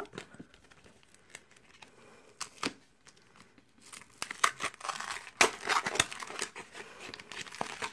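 Foil booster-pack wrapper of Magic: The Gathering cards being torn open and crinkled by hand. A few light crackles at first, then a denser stretch of tearing and crinkling from about halfway.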